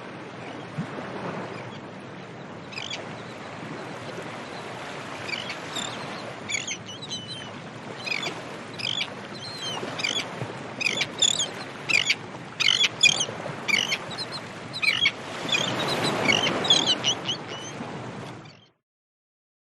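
Seagulls calling in many short, sharp, high cries over a steady background hiss of a beach; the cries start about three seconds in and come thickest through the middle, and the hiss swells near the end. The recording stops abruptly about a second before the end.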